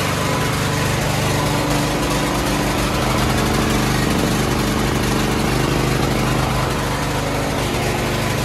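Small generator engine running at a steady speed, with an even low drone.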